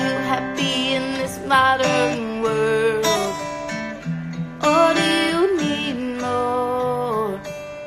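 Music: acoustic guitar strumming chords with a voice singing a slow melody over it in long, wavering held notes.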